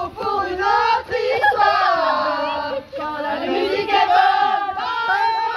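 A group of people singing together, several voices at once, with some notes held.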